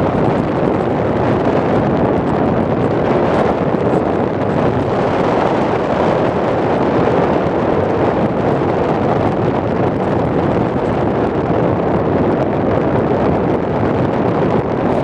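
Steady, loud wind rush buffeting the microphone of a camera carried on a flying RC plane.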